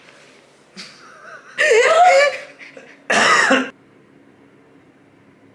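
A person's voice in two loud, exaggerated laughing outbursts, the first with a swooping pitch and the second short and harsh, like a cough. After that there is only faint room tone with a low hum.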